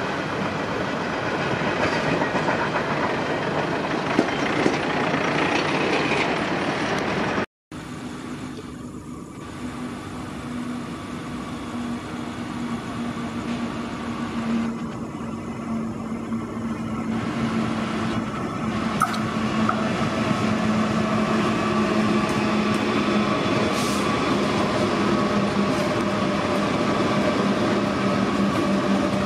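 Train running, cut off abruptly about seven seconds in. Then a Pacific National diesel freight locomotive approaches with a steady engine drone that grows gradually louder, and it is passing near the end.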